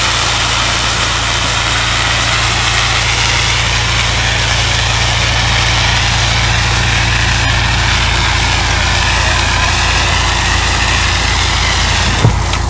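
Hiss of a fire hose spraying a reduced-flow stream of water and foam agent onto burning coal, over the steady low hum of an engine. The spray hiss cuts off near the end.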